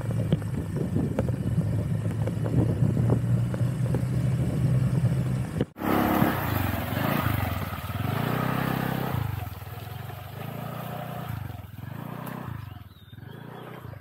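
Small motorcycle engine running at a steady speed, then, after a brief break about six seconds in, revving up and down over and over, rising and falling every second or so and growing fainter near the end.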